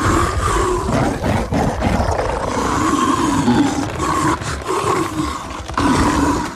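Monster sound effect presented as a chupacabra: a long, rough, growling roar with a wavering pitch, held without a break.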